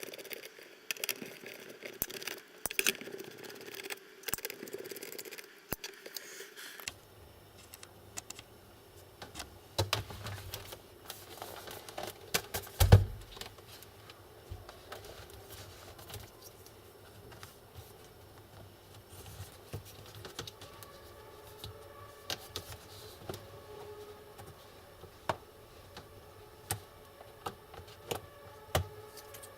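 Scattered small clicks, taps and scrapes of a laptop's parts and screws being handled during disassembly, with one louder knock near the middle.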